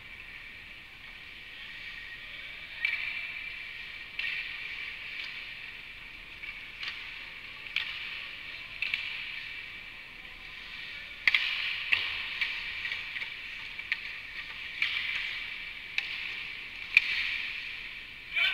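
Ice hockey rink at practice: a steady hiss of skate blades scraping the ice, with sharp clacks of sticks and pucks every second or two, the sharpest about eleven seconds in.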